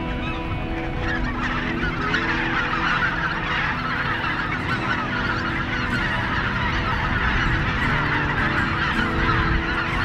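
A large flock of geese taking flight off the water, many birds honking at once in a dense chorus that swells about a second in and stays thick throughout.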